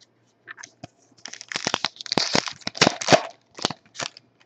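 A foil trading-card pack wrapper being crinkled and torn open by hand, a quick run of sharp crackles that is densest in the middle and ends in a few last crackles near the end.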